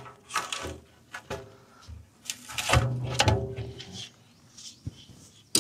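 Round steel door of a homemade tank kiln being unlatched and pulled open. Several metal clanks and knocks come first, then a longer scraping sound a little past halfway.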